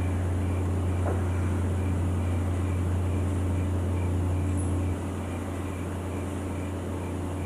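A steady low hum under faint noise, with a faint high pip repeating about twice a second. It drops in level about five seconds in.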